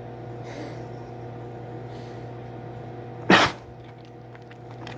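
A dog sneezing once, a single sharp, loud burst about three seconds in, while eating a crumbly gingerbread dog cookie.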